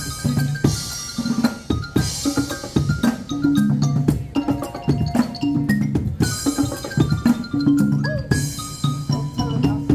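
Percussion group playing a song on drums and homemade instruments built from used materials: a steady drum beat with repeating pitched, mallet-like notes in a low and a high line.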